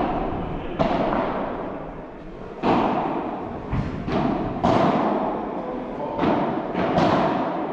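Padel rally: the ball being struck by solid padel rackets and bouncing off the court and glass walls, a series of sharp hits about every one to two seconds, each echoing in a large hall.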